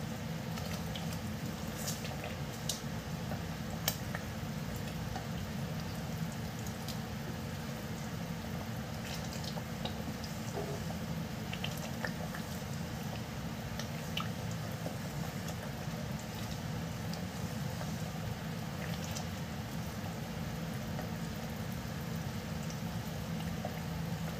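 Chili garlic oil sauce bubbling in a stainless-steel pot while a wooden spoon stirs it: a steady bubbling with scattered small pops and spoon knocks, the sharpest about four seconds in.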